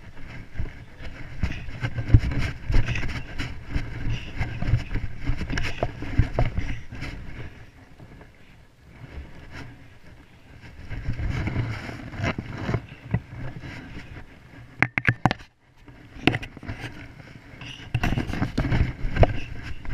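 Uneven wind rumble on an action camera's microphone, with scrapes and knocks from the camera being handled. It swells and fades, and a quick cluster of knocks comes about fifteen seconds in.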